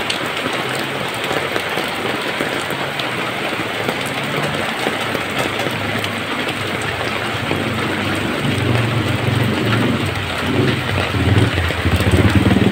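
Heavy rain pouring steadily onto a street and an umbrella overhead. From about two-thirds of the way in, a motorcycle engine's low putter comes in and grows louder as it approaches.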